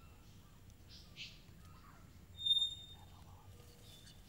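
Young male bellbird giving two short, harsh calls: a faint one about a second in and a louder one about two and a half seconds in. A thin, high whistle follows the louder call. These are the false, out-of-tune notes of a bird still learning its song.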